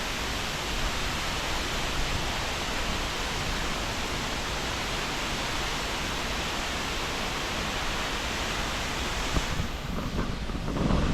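Diyaluma Falls' water plunging into its pool at the foot of the falls, a steady rushing noise. Near the end the rushing thins, and low buffeting on the microphone comes in.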